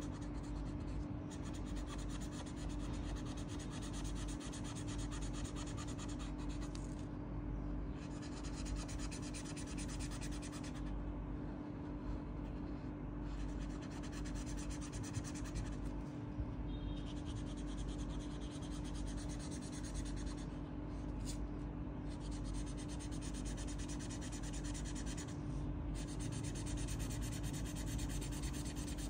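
Acrylic paint marker's tip rubbing back and forth on paper in continuous coloring strokes, over a steady low hum.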